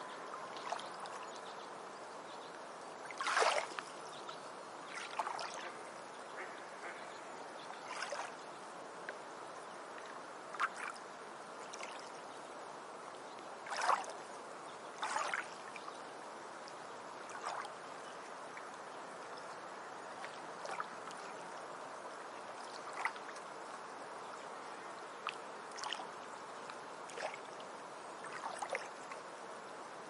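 Beach ambience: a steady hiss of water along the shore, with short water-bird calls every one to three seconds, the loudest about three seconds in and again near fourteen seconds.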